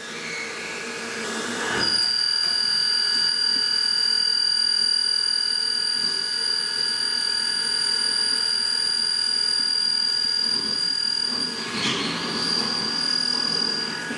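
Metalworking machine running with a steady, high-pitched whine or squeal, with a brief noisy break about twelve seconds in.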